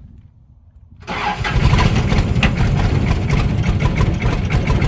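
Cold diesel engine of a Bobcat 116 excavator cranking on the starter after the glow plugs have been heated. It starts suddenly about a second in, with a rapid, even knocking. The engine is too cold to start cleanly and needs more glow-plug time.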